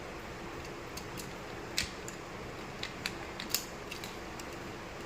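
A few scattered sharp clicks and small snips of handwork, the loudest about two seconds in and again past the middle, over a steady room hum.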